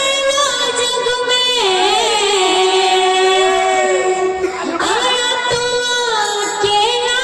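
A woman singing an Odia kirtan devotional song into a microphone, holding long notes that waver in pitch.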